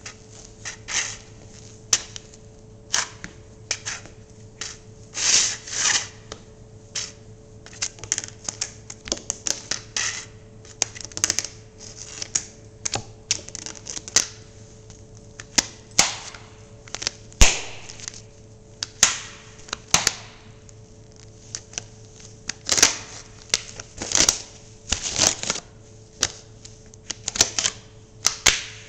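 Sneakers stamping on and grinding a flattened metal coffee can against a hard floor: irregular crunches, clanks and crinkling scrapes of crushed sheet metal. The sharpest strike comes a little past halfway.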